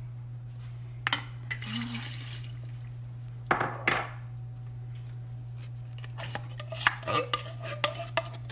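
A spoon scraping and knocking in a mixing bowl as chicken is added to the dressing mixture: a short scrape about a second in, two knocks a little later, then a run of quick clinks near the end with the bowl ringing. A steady low hum runs underneath.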